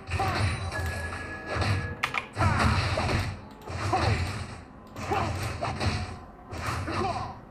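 Video game audio: background music with a run of combat sound effects, bursts coming about once a second.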